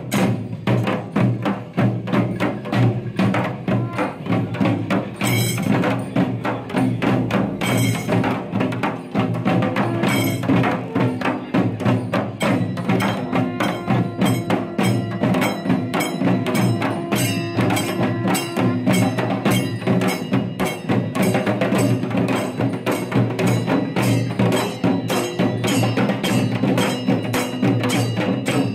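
A procession percussion band of stick-played barrel drums and small brass hand cymbals plays a fast, dense, steady rhythm. The drum strokes come thick and even, and the cymbals ring over them.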